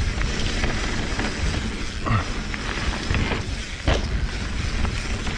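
Mountain bike riding fast down a gravel-and-dirt trail, heard from a chest-mounted camera: wind rumbling on the microphone over tyre noise and rattling from the bike, with a sharp knock about four seconds in.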